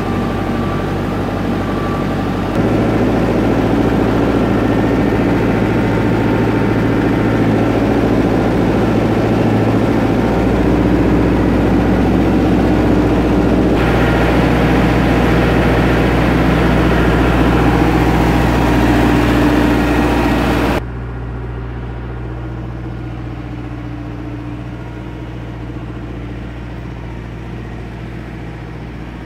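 Farm machinery engines running steadily: a loader at the silage pit and a tractor-driven vertical TMR mixer wagon. The sound comes in several clips joined by abrupt cuts, and the last part is noticeably quieter.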